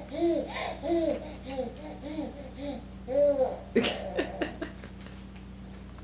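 A baby babbling in a string of short 'ah' sounds that rise and fall, about three a second, through the first three seconds or so. About four seconds in comes a sharp tap followed by a few softer clicks.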